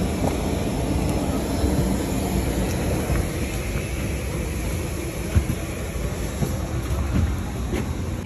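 Steady rumble and hiss of a parked airliner and the apron around it at the aircraft's door, with a few faint clicks and one sharp knock a little past halfway.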